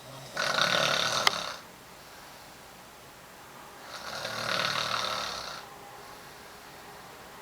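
A woman snoring in her sleep: two snores about three and a half seconds apart. The first starts abruptly and is the louder, with a brief sharp click near its end; the second swells and fades more gradually.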